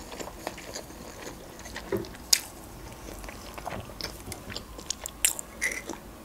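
Close-miked chewing and wet mouth clicks from a person eating, with scattered sharp clicks. Near the end come sounds of drinking from a coffee mug.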